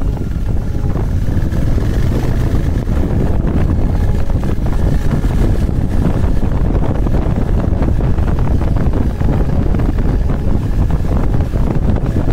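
Motorcycle under way, its engine running steadily beneath heavy wind rumble on the microphone.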